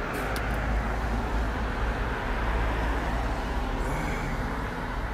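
Steady city street traffic noise: a constant low hum of engines and road rush, with a couple of faint clicks just after the start.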